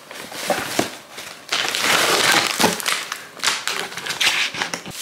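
Packaging being handled as a cardboard box is opened and a plastic protein-powder pouch is lifted out: crinkling and rustling with a few sharp clicks, loudest about halfway through.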